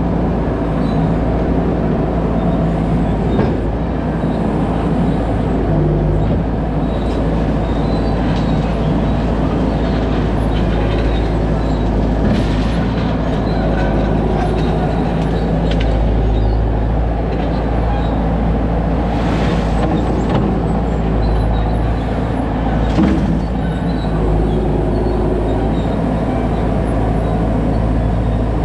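Skid steer engine running steadily at working speed, with a few brief scraping noises partway through.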